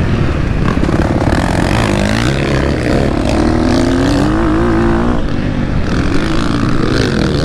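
2023 KTM 250 SX-F's single-cylinder four-stroke engine being ridden hard on a dirt track. Its pitch rises and falls several times as the throttle is opened and closed through the ruts and a corner.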